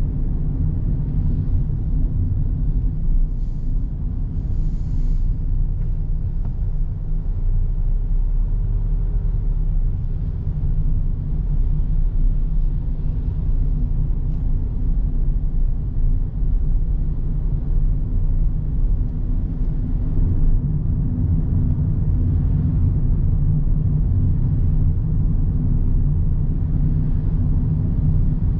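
Car driving on a road: a steady low rumble of engine and tyre noise.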